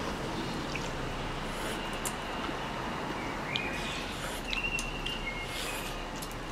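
Steady outdoor background hiss with a few short, high bird chirps about halfway through, and faint clicks of chopsticks against bowls as people eat.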